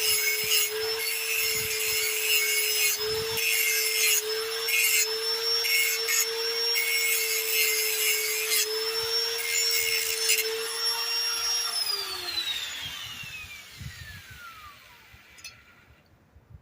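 Electric grinder running with a steady whine while it grinds the cutting edge of a steel lawnmower blade, its pitch dipping slightly now and then under load. About twelve seconds in it is switched off and the whine falls away as it spins down.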